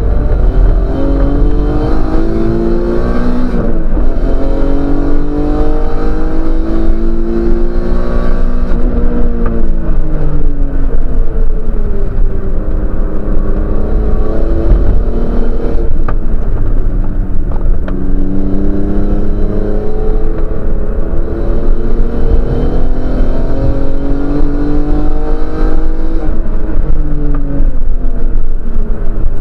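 Race car engine heard from inside the cabin, accelerating hard with its pitch climbing through the gears, easing off and dropping in pitch for the corners, then pulling up again, over a heavy low road and wind rumble.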